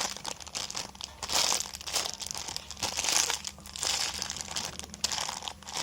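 A squishy toy's plastic packaging crinkling in irregular bursts as it is handled.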